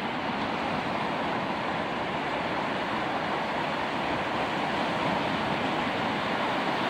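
Ocean surf breaking offshore and washing up a sandy beach: a steady rushing wash with no single crash standing out.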